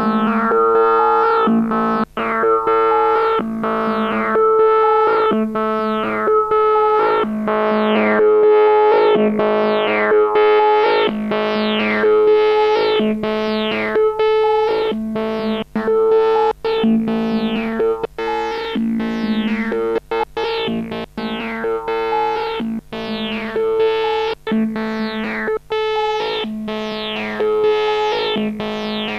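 Vermona Perfourmer MKII analog synthesizer playing a repeating pattern of short notes, roughly one to two a second, each one's brightness falling away quickly, over a held lower note, heard through a Behringer FX2000 effects processor preset.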